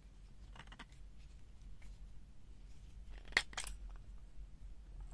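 Plastic clicks from the red bit-storage cap of a Felo 37320805 magnetic-handle screwdriver being worked open: a few soft clicks about half a second in, then a sharp double click about three and a half seconds in as the cap comes free.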